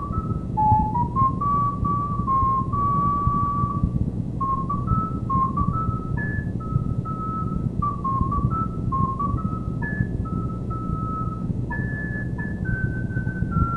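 Solo recorder playing a melody of short stepping notes with a few longer held ones, over a steady low rumble.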